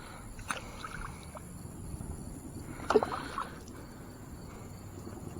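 Kayak moving on calm water, with a few knocks against the hull; the sharpest and loudest comes about three seconds in.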